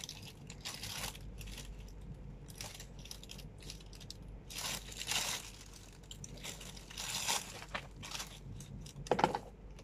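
Clear plastic packaging bag crinkling and rustling in irregular bursts as a handbag is handled and drawn out of it, with a few light clicks in between.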